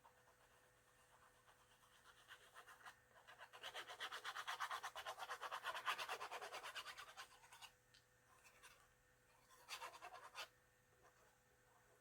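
Fast back-and-forth scraping or scrubbing on the old cookbook, many strokes a second. It builds to a steady run of about four seconds, then fades, and comes again as a shorter burst near the end. This is likely the old brown binding glue being worked off.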